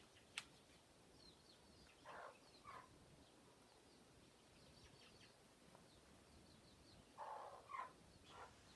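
Chickens clucking softly: two short calls a little after two seconds, then three more near the end, over faint high chirping in the background. A sharp click sounds just after the start.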